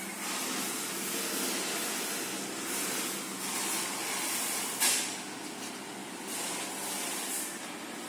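Steady mechanical hum under an even hiss, with one sharp click about five seconds in.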